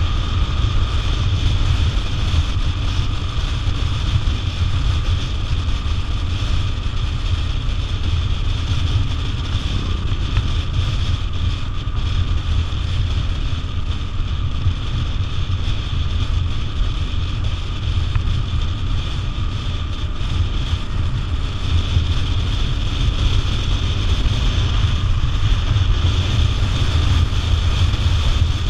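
BMW adventure motorcycle running at a steady cruising speed, its engine a constant low rumble under heavy wind rush on the microphone.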